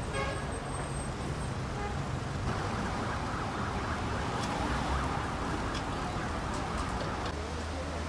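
A siren sounds for several seconds in the middle, over steady city street traffic noise.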